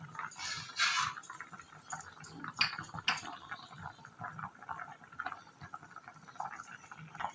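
Water splashing in a pot of cut tomatoes, with a couple of sharp knocks of the vessel a few seconds in.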